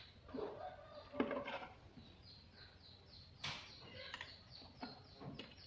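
A small bird chirping in fast repeated short, falling notes, with a few sharp clicks and knocks of handling, such as wires and clips being fitted, about a second in and again about three and a half seconds in.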